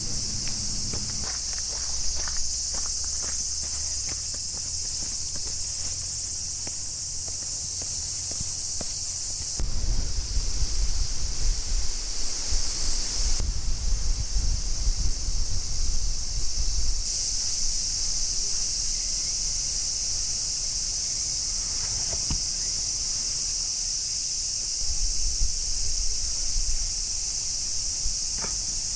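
A dense chorus of cicadas, a steady high-pitched hiss throughout. Footsteps tap on gravel during the first several seconds, and for a stretch in the middle a gusty low rumble of wind on the microphone is the loudest sound.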